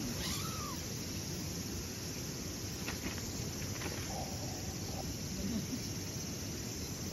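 Outdoor ambience: insects trilling steadily at a high pitch over a low steady rumble, with a few short animal calls, one near the start and another about four seconds in.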